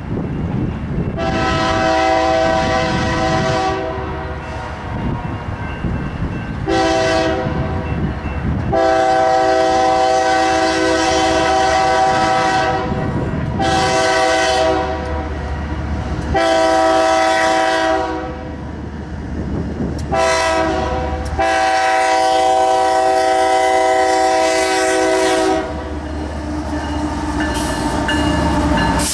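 Diesel locomotive air horn sounding a chord in a series of about seven blasts, long and short, ending in a long blast: the whistle signal for a grade crossing. Under it is the low rumble of the train's diesel engines and wheels on the rails.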